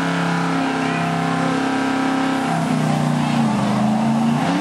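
Engine of a motorized drill-team race truck running at high revs and holding steady. It drops off about three seconds in, then climbs again near the end.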